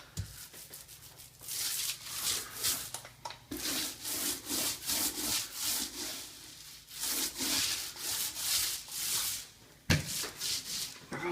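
Small paint roller loaded with emulsion being rolled back and forth over a wall: repeated swishing strokes with short pauses between passes. A single sharp knock near the end.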